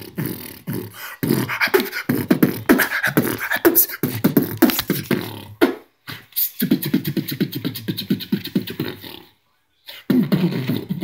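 A man beatboxing: rapid rhythmic mouth clicks and vocal pulses, with short breaks about six seconds in and about nine and a half seconds in.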